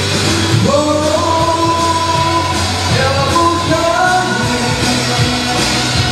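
A male singer performing a Mandarin pop song live into a handheld microphone over instrumental accompaniment. Twice his voice slides up into a long held note.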